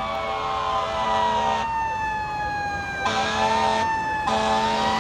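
Fire apparatus responding with its siren wailing, the pitch slowly falling and then rising again. An air horn sounds over it in three blasts.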